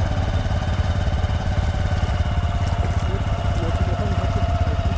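Small single-cylinder motorcycle engine idling steadily.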